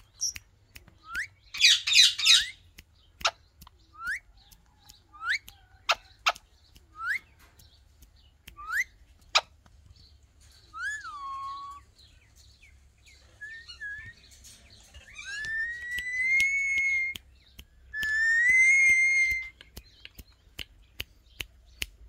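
Alexandrine parakeets calling. Short rising whistles come about once a second, with a harsh squawk about two seconds in. Two longer whistled calls follow near the end, with sharp clicks scattered between.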